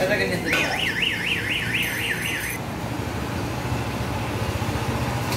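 An electronic siren-like alarm tone warbles rapidly up and down, about four cycles a second, for roughly two seconds and then stops. Under it, the motor of a wire-mesh making machine runs with a steady low hum.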